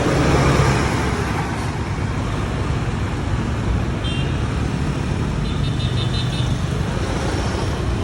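Volvo B11R coach's six-cylinder diesel engine running with a steady low hum, swelling briefly in the first second. Faint short high beeps sound about four and six seconds in.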